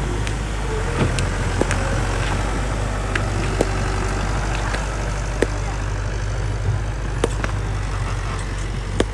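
Heavy earthmoving machine's diesel engine running steadily, with a few sharp clicks and knocks scattered through.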